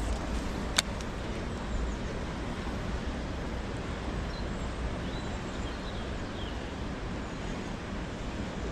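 Steady outdoor background noise with a low rumble. There is one sharp click about a second in, and a few faint bird chirps midway.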